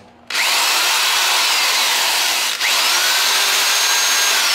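Rockwell 4150J1 3/8-inch corded electric drill running with no load, switched between forward and reverse: it starts with a rising whine a quarter second in, cuts out briefly about halfway, and spins up again with another rising whine.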